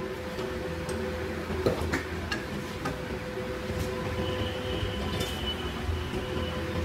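A few sharp metallic clinks and taps of hand tools and steel pieces being set down against a steel beam, over a steady low hum.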